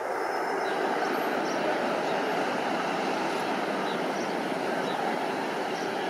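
Twin-engine jet airliner landing: steady engine noise as it crosses the threshold and touches down, holding an even level throughout.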